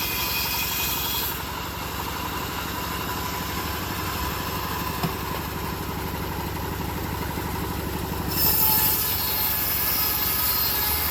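Engine-driven homemade bandsaw mill running steadily. A high hiss sounds for about the first second and comes back, a little louder, about eight seconds in, with one short click near the middle.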